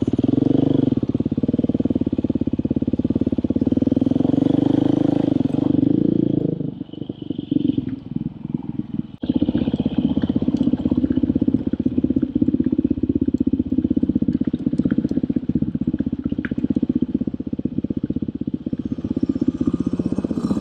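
Off-road dirt bike engine running with an even, rapid firing pulse. About a third of the way in it drops back toward idle for a couple of seconds, then picks up again after a sharp knock.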